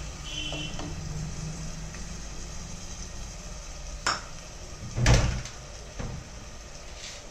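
Wooden spatula stirring rice and lentils in an aluminium pressure cooker, scraping against the pot over a faint sizzle. Two sharp knocks about four and five seconds in, the second the loudest.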